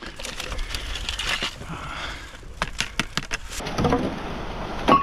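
Irregular crunching and cracking of dry washed-up beach debris being trodden on and handled, ending with a single sharp knock.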